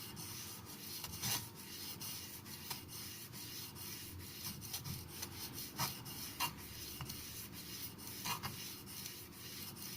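Steel knife blade stroked over a Black Arkansas sharpening stone, a faint scraping with soft irregular ticks as the strokes change direction. The strokes refine the edge's scratch pattern after the coarser India stone.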